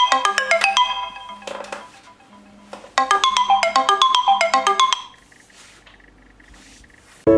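Smartphone alarm tone: a quick run of bright, chiming mallet-like notes, played in bursts of about two seconds with pauses between, while the phone's vibration motor buzzes in short pulses about once a second. Just before the end a different, steady tone begins.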